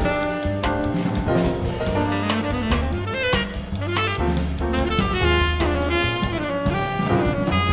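Jazz nonet playing: saxophone and brass lines moving over a drum kit and low bass notes.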